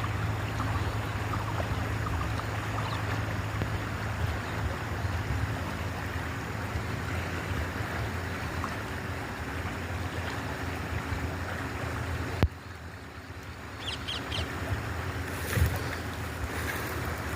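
Steady rush of a river in flood. About twelve seconds in it cuts abruptly to a quieter stretch with wind buffeting the microphone in a few thumps.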